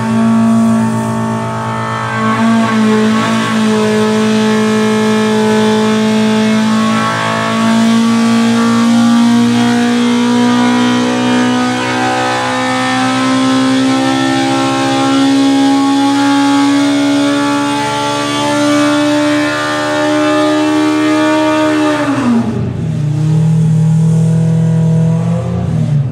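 Polaris Pro R four-cylinder engine, breathing through a 3D-printed 68 mm prototype throttle body, running loud under load on a dyno. Its note climbs slowly and steadily through a long pull, then falls sharply as the throttle closes about four seconds before the end, settling at a lower steady speed.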